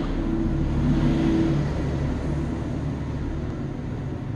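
A low mechanical drone with a steady hum in it, swelling slightly about a second in and then easing off.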